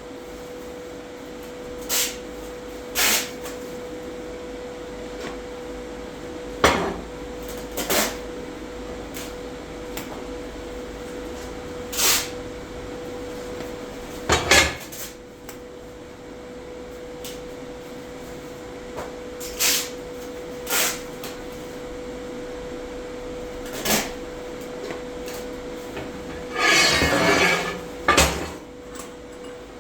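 Metal parts clanking as they are handled and set down on a welding bench: about ten separate knocks spread out, then a rougher rattling clatter lasting a second or so near the end. A steady faint hum runs underneath.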